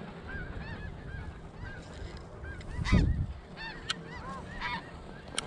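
A large flock of snow geese calling, many short high honks overlapping without a break, with one louder, nearer call about three seconds in.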